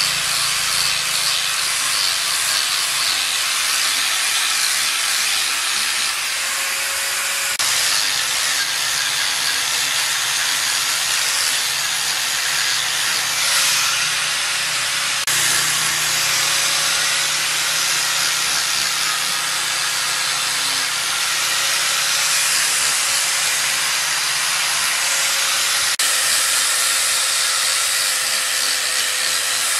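Electric angle grinder fitted with a sanding disc, running and sanding a wooden carving: a continuous hiss of abrasive on wood over the motor's steady whine.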